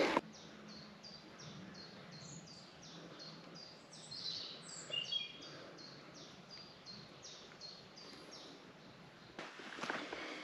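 Woodland birdsong: a small songbird repeating one short, high, down-slurred note about three times a second for roughly eight seconds, while a second bird adds a few falling notes around four to five seconds in. A soft rustle rises near the end.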